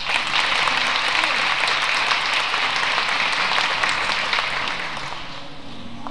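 Audience applauding, a dense clapping that starts all at once and fades away near the end.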